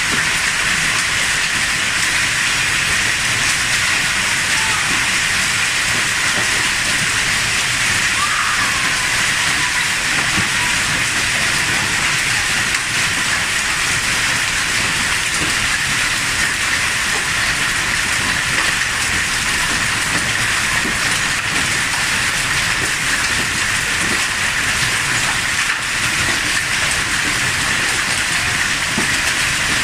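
Hail falling steadily in a storm: a dense, even hiss made of countless small hits.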